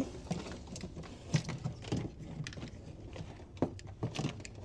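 Light, irregular clicks and rattles of a multimeter's test leads and probe clip being handled and hooked onto the wiring.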